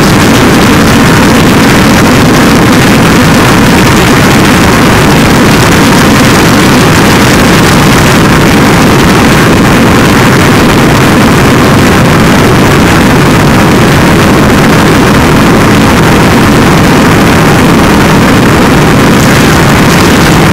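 Harsh noise wall: a dense, unbroken wall of distorted electronic noise at full loudness, thickest in a low rumble, with no rhythm, pauses or changes.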